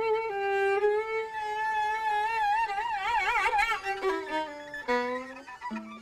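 A string quintet playing live, led by bowed violins. The violins hold long melody notes, with a wide, heavy vibrato a little past halfway. Near the end, shorter repeated lower notes come in.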